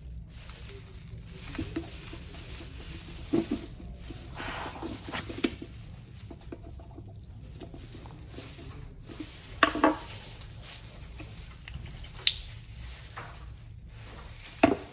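Small clicks, taps and scrapes of a metal hex tool turning the screw in the base of a CO2 pistol magazine to seat a CO2 capsule, with a few sharper knocks of the magazine and tool against each other and the table.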